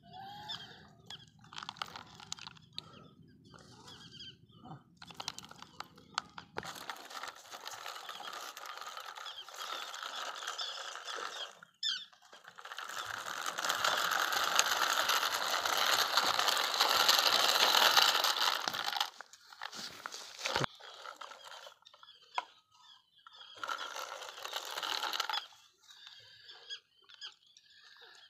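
Dry fish-feed pellets rattling and crunching as they are scooped by hand and dropped into a plastic toy trolley. About halfway through there is a long stretch of steady scraping as the plastic toy tractor is pushed across the gritty concrete floor.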